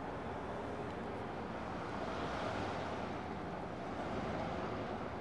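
Steady noise of a car running, swelling a little in the middle.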